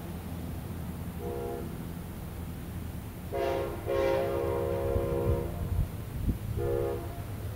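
Amtrak Silver Star's locomotive horn sounding as the train approaches, a chord of several notes: a short blast about a second in, a short and a long blast around the middle, and another short blast near the end, over a steady low rumble.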